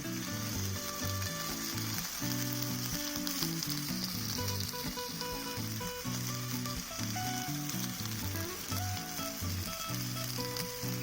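Food sizzling and crackling in a hot pan, a steady hiss, over background music of low sustained notes.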